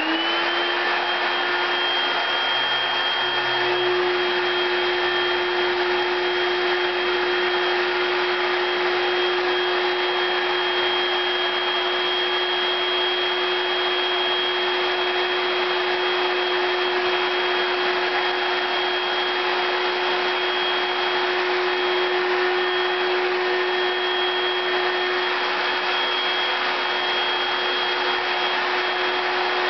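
Hoover Celebrity straight-suction canister vacuum switched on: its motor spins up with a quick rising whine in the first second, then runs steadily with a constant whine over the rush of air.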